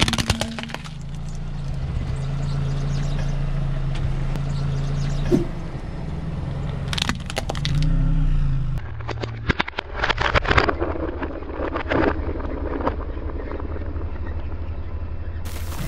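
A car tyre rolling over and crushing a plastic toy tank, the plastic cracking and snapping in several bursts, with the car's engine running steadily underneath.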